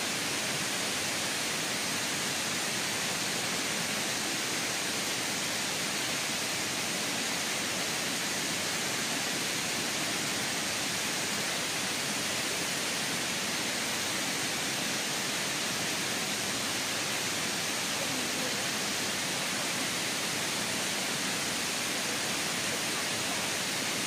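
Waterfall water cascading over rock terraces: a steady, even rush that does not change.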